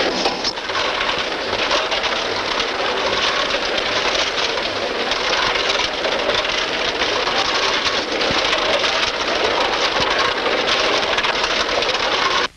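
Dense, steady clatter and rattle of metalworking machinery on an automatic production line, cutting off suddenly at the end.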